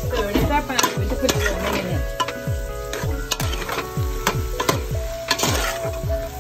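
A metal spoon stirs chicken pieces and mixed vegetables frying in an aluminium pot, with sizzling and repeated scraping and clinking of the spoon against the pot. Music with a steady low beat plays underneath.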